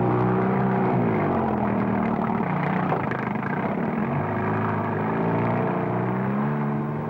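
An engine running steadily, its pitch dropping about a second in and climbing again between about four and six seconds as it changes speed.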